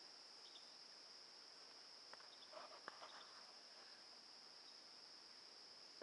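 Faint, steady high-pitched trilling of crickets, with a few soft footsteps in the grass about two to three seconds in.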